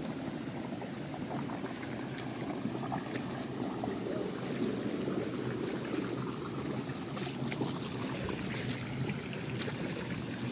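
Waterfall: water falling and splashing in a steady rush, with a few faint ticks near the end.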